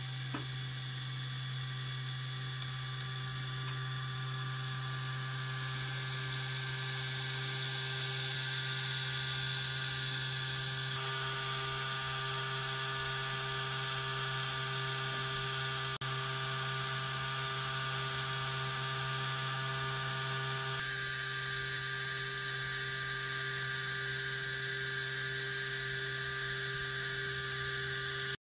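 Small LEGO electric motor whirring steadily as it drives a LEGO gear train and string belts; the tone shifts slightly twice.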